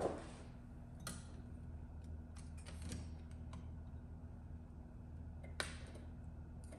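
Scattered light clicks and ticks of a hand tool working on the metal parts of a drop-target bank under a pinball playfield, sharpest about a second in and near the end, over a steady low hum.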